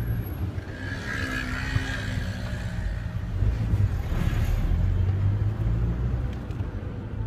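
Car engine and road noise heard from inside the cabin of a moving car: a steady low rumble.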